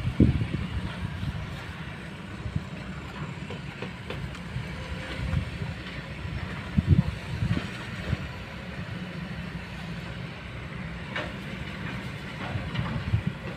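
Kobelco long-reach excavator's diesel engine running with a steady low rumble, with a few short metallic knocks, the loudest about seven seconds in.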